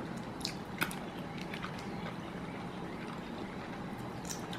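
Faint, wet mouth clicks of someone chewing a bite of chicken, a few soft ticks spread over a steady low room hum.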